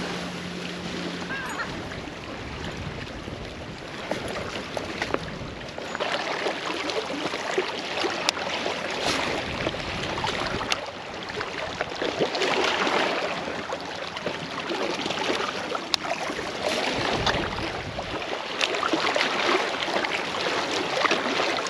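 Outdoor wind and water noise, a rising and falling hiss, with a few sharp clicks.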